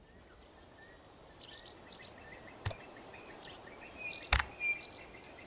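Bush ambience: birds chirping with short repeated calls over a steady, high insect whine. Two sharp clicks cut through, about two and a half and four seconds in, the second louder.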